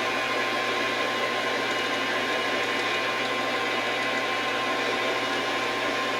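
Metal lathe running steadily while turning down a steel bar, an even hum and hiss with a constant tone in it.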